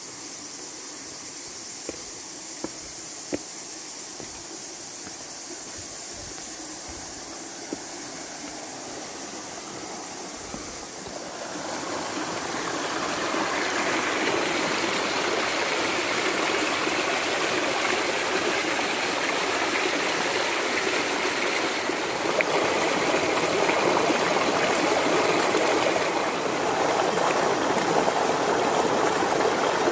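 Shallow rocky stream rushing and splashing over stones. It is fainter at first, with a few faint clicks, then swells louder and fuller a little under halfway through and runs on steadily.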